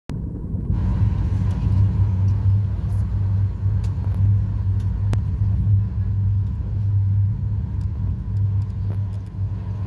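Steady low cabin rumble of a Boeing 737-800 on approach to land, its CFM56-7B jet engines and the airflow heard from inside the cabin by a window seat over the wing.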